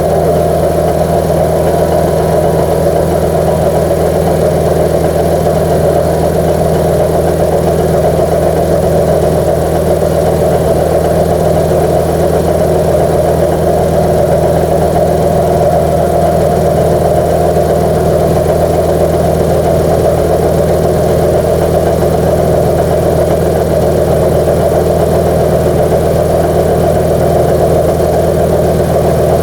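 Workshop air compressor with a newly fitted pump running steadily as it pumps the tank back up toward its 120 psi cut-out.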